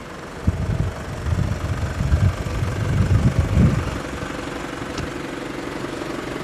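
Nissan Elgrand's 3.0 litre turbo diesel engine idling steadily. From about half a second to about four seconds in, irregular low rumbling on the microphone is louder than the engine.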